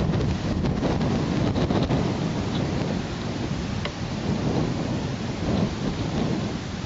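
Wind buffeting an outdoor nest camera's microphone, a steady low rumble that surges and eases, with two faint ticks in the middle.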